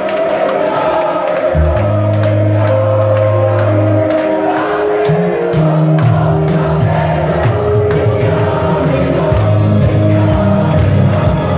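Loud dance music over a bar sound system, with a heavy, shifting bass line and a steady beat, and a packed crowd singing and cheering along over it.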